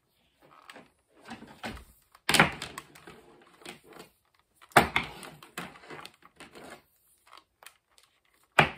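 Power cord being wound by hand around the plastic body of a Hamilton Beach hand mixer: scattered rustling and clicking of the cord against the housing, with sharp knocks about two and a half and five seconds in and again near the end.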